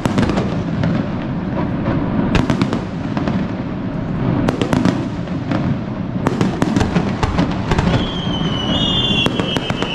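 Daytime fireworks launched from the pier: a series of sharp bangs and crackling pops in clusters. A high whistle slides slowly down near the end.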